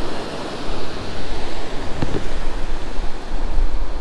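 Ocean surf washing up a sandy beach, with wind rumbling on the microphone.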